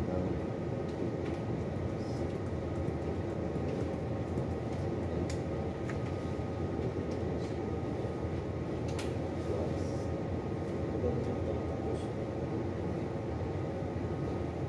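Steady low rumble and hum of a ship's machinery and ventilation, with a few faint clicks.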